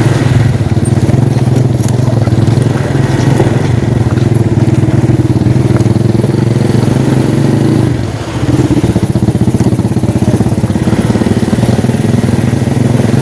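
Motorcycle engine running steadily while under way. About eight seconds in the engine note briefly drops, then picks up again.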